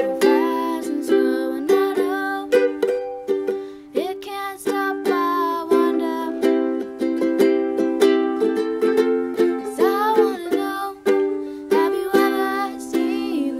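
Ukulele strummed in a steady rhythm, with a young voice singing a melody over the chords.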